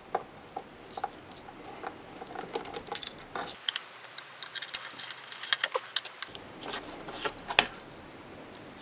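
Screws being taken out of the base of a Technics SL-5 turntable with a screwdriver: scattered small clicks, taps and light rattles of the tool and screws against the cabinet.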